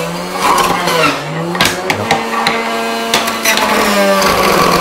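Electric centrifugal juicer with a 450-watt copper motor running steadily while banana stem pieces are pushed down the chute and shredded. Its hum dips about a second in and picks up again under the load, with several sharp knocks as the pieces hit the spinning blade.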